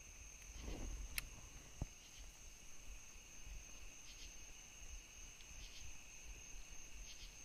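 Steady chorus of insects at dusk, two high pitches droning without a break, with a soft swish about a second in and a few faint clicks.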